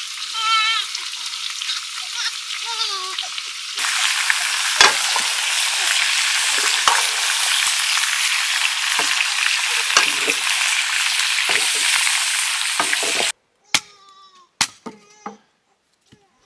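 Pork pieces sizzling as they fry in a black wok over a wood fire, with the metal ladle knocking and scraping as it stirs. A child's voice is heard over the frying for the first few seconds. The sizzling gets louder about four seconds in, stops abruptly near the end, and a few sharp knocks follow, a blade chopping a wooden stick.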